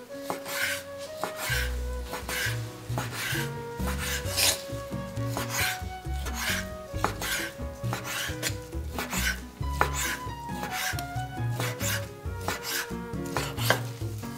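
Repeated rasping strokes, about two a second, of a kitchen tool working on food. Music with a melody and a pulsing bass line plays underneath.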